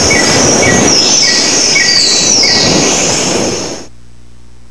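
Sound effect of a TV show's break bumper: a loud noisy rush with a short beep about twice a second and a few falling whistle-like sweeps. It cuts off abruptly near the end, leaving a low hum.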